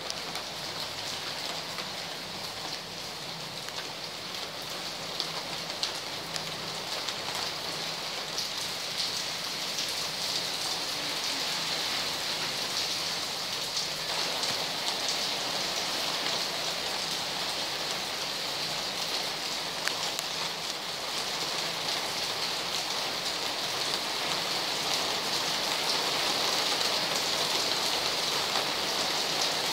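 Heavy rain falling on the street and nearby surfaces, a dense steady hiss with many close drops ticking, slowly growing louder.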